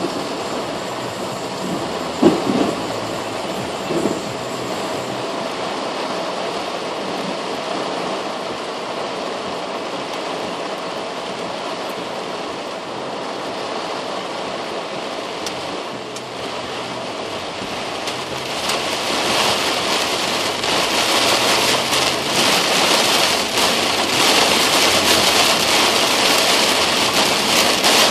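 Rain pelting a car's windshield and roof, heard from inside the car as a steady hiss. About two-thirds of the way through it becomes a much louder, denser downpour. There are two short knocks in the first few seconds.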